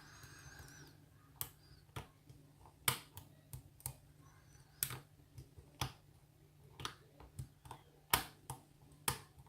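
Irregular light clicks of a lock pick working the pins inside a Yale cylinder lock, around a dozen and a half sharp ticks spaced unevenly, a few louder than the rest.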